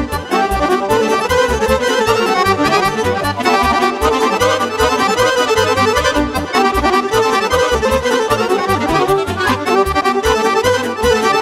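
Instrumental break of Romanian party music: a Roland digital accordion plays a fast, busy melody over a keyboard's steady bass beat.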